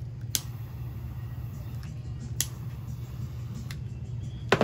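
Sharp clicks of hands working thin balance-lead wires and a plastic connector plug on a LiPo battery pack: a few single clicks, then a quick cluster of louder clicks near the end. A steady low hum runs underneath.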